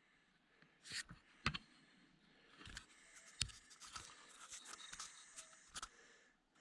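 Faint, scattered clicks and light knocks of hand tools and parts being handled on an engine. The two sharpest knocks come about a second and a half and three and a half seconds in.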